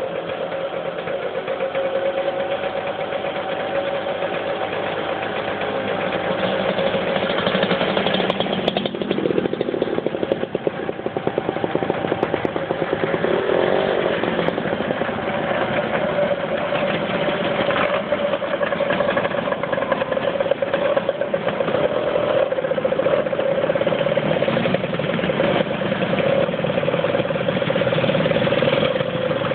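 A procession of motor scooters riding past one after another, their small engines buzzing steadily. The sound grows louder over the first several seconds as more of them arrive, then stays up.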